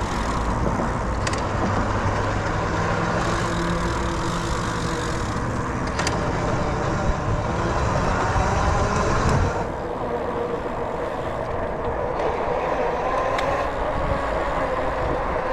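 Steady road traffic noise, a continuous rumble of passing vehicles that eases a little about nine and a half seconds in.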